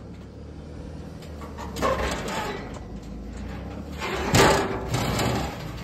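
Car-hauler trailer loaded with a car clunking and creaking as it rolls over rocks, with a knock about two seconds in and a louder clunk about four seconds in, over a steady low rumble.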